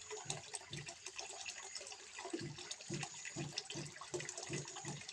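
Water trickling into a small fish pond: a continuous, irregular patter of small splashes and plops.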